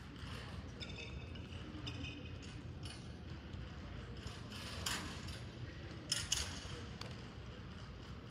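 Sports-hall ambience: a steady low hum with faint squeaks and taps, and a louder double tap about six seconds in.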